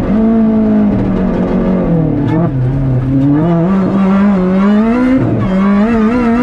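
Rally car's engine heard from inside the cabin while driving a stage. The revs drop about two seconds in, stay low briefly, then climb again under acceleration, with another short dip in revs about five seconds in.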